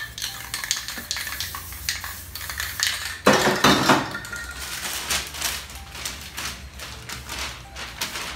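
Aerosol spray paint cans in use: spurts of spray hiss, the longest about three seconds in, among metallic clinks and rattles of the cans. Paper rustles near the end.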